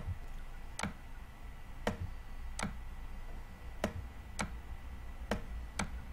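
Light, sharp clicks at uneven intervals, about eight in all, made while handwriting is entered on a computer drawing screen, over a faint low hum.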